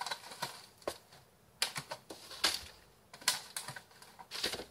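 Light, irregular taps and clicks, about eight of them, as vol-au-vent pastry cases are set down one by one on a baking tray.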